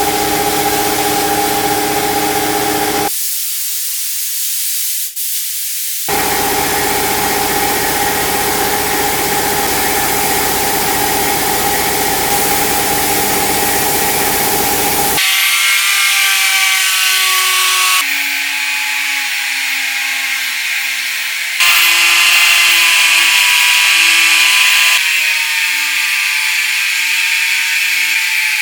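Small electric workshop tools running in a string of short edited clips. First a steady motor hum, broken near the start by a few seconds of high hiss. Then, about halfway, a higher-pitched hum that jumps in pitch at each cut.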